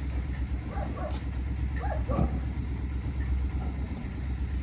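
Engine of a septic pumping truck idling steadily with a low hum. A dog barks a few times about one and two seconds in.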